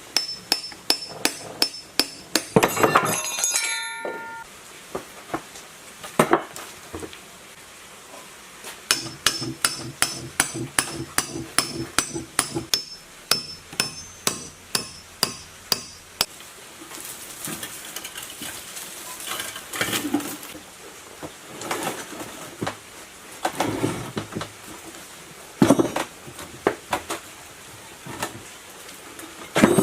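Metal hammering and tapping on an old three-phase electric motor being taken apart, in runs of quick, sharp strikes with a metallic ring. Duller scraping sounds come between the blows in the later part.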